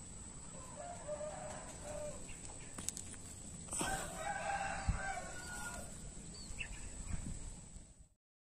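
A rooster crowing twice, the first call about a second in and a louder second one about four seconds in, over a steady high whine.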